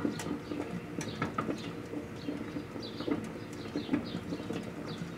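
Microwave oven running with a steady hum while 3½-inch floppy disks burn inside it, with irregular crackles and pops and short high chirps throughout.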